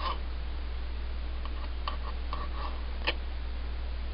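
Knife cutting turkey meat into strips: a few light taps and clicks, with one sharper click about three seconds in, over a steady low hum.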